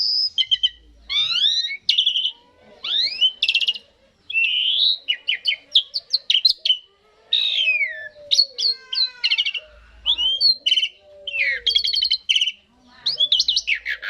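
Jalak suren (pied starling) singing a long, varied song: clear gliding whistles mixed with rapid buzzy rattles and chatter, in short phrases with brief pauses between them.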